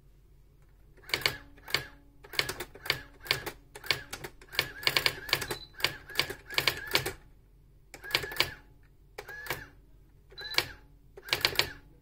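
Brother GX-8000 electronic daisy-wheel typewriter printing as it is typed on: quick runs of sharp clacking strikes, starting about a second in and coming in bursts, with short pauses near the middle and toward the end.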